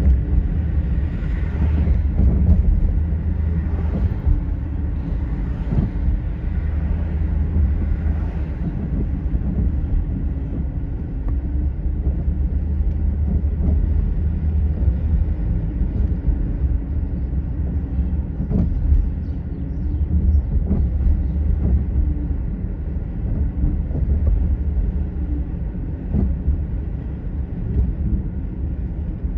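A car driving: a steady low rumble of engine and road noise, with a faint hum that comes and goes and, now and then, a small knock.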